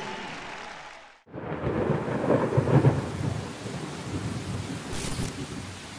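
Thunderstorm sound effect: after a brief silence about a second in, thunder rumbles over falling rain, loudest just after it starts and then settling into a steady rain hiss. A short sharp crack comes near the end.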